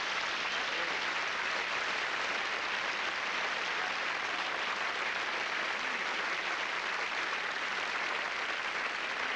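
Audience applauding steadily after a comedy impression.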